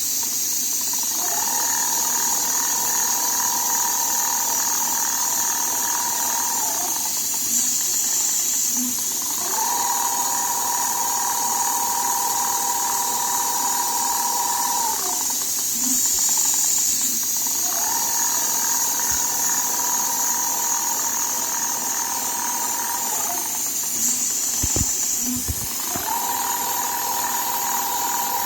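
Rotary head leather sewing machine running in four stints of about five seconds. Each stint is a steady motor whine that rises as it starts and drops away as it stops, with short pauses between, over a constant hiss.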